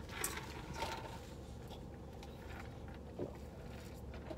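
Faint handling sounds of a fast-food drink cup with a straw: a few small soft clicks and rustles as it is picked up and raised to drink, over a low hum.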